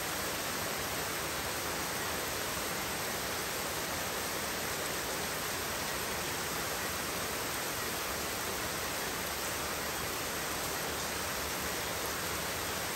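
Heavy rain falling in a steady, even hiss, with no single drops, thunder or other sounds standing out.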